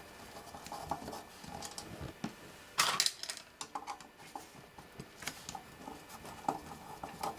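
Small clicks and taps of a screwdriver and metal parts being handled while the front screws of a Collins 51Y-7 ADF receiver's chassis are undone, with one louder clack about three seconds in.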